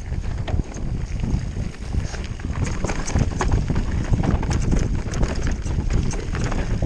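Enduro mountain bike descending a dirt trail at speed: steady wind rumble on the microphone and tyre noise on the dirt, under a continual irregular rattle of chain and bike clicking over the bumps.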